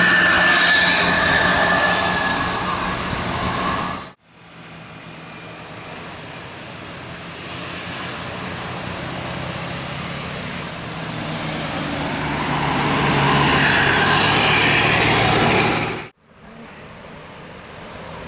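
Road vehicles passing on a road, engines running with tyre and road noise, in three stretches broken by sudden cuts about 4 and 16 seconds in. In the middle stretch a vehicle approaches, getting steadily louder until it passes just before the second cut.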